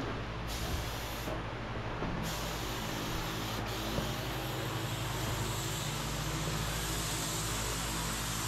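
Air-powered gravity-feed spray gun hissing as it sprays epoxy primer, triggered on about half a second in, released briefly after about a second, then held on steadily. A steady low hum runs underneath.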